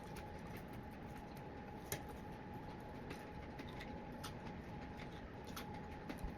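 Quiet chewing of french fries, with scattered small mouth clicks, one sharper click about two seconds in, over a faint steady high-pitched hum.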